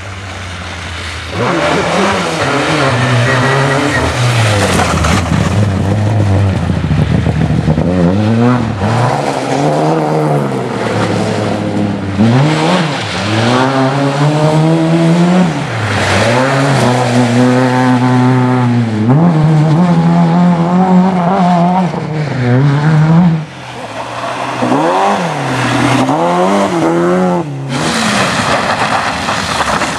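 Lada 2107 rally car's engine revving hard, its pitch climbing and dropping again and again through gear changes and lifts around the corners. Near the end, after an abrupt cut, a BMW E30 rally car's engine takes over.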